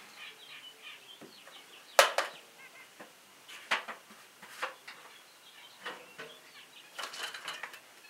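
A handful of sharp knocks and clunks as a bucket is handled on a sawmill head, the loudest about two seconds in and a short clatter near the end, with birds chirping faintly behind.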